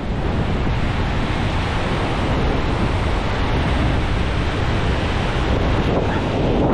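Ocean surf washing in around the shallows, mixed with wind on the microphone: a steady rushing noise with a heavy low rumble.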